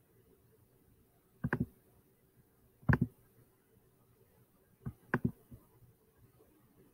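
Clicks of a Chromebook's pointer button, heard as three short sets of sharp clicks a second and a half or two apart, each a quick press and release, the last set a single click followed by a double.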